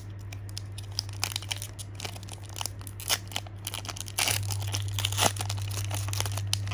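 Foil booster-pack wrapper crinkling and being torn open, with crackly rustles of the cards being handled; a steady low hum runs underneath and gets a little louder about four seconds in.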